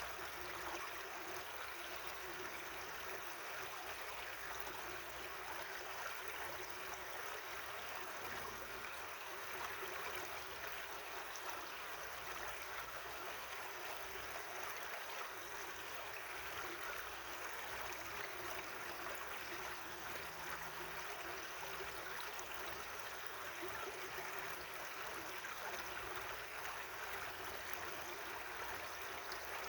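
Natural running water flowing steadily and evenly.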